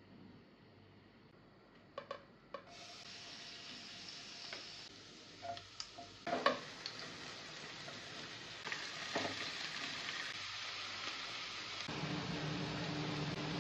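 Hot oil sizzling in non-stick pans as minced garlic fries. The sizzling starts a few seconds in, after a couple of sharp clicks, and grows steadily louder. Near the end it turns fuller and lower as chopped vegetables are tipped into the pot.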